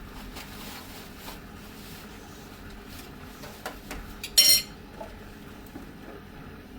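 A few light clicks and one sharp, ringing clink about four and a half seconds in: hard objects knocking together, like dishes or cutlery being handled.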